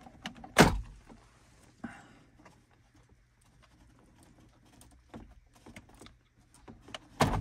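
Plastic wire harness connectors being unclipped and pulled from the back of a car's climate control panel: a sharp plastic clack about half a second in, scattered small clicks and rattles of the plugs and wires, and another loud clack near the end.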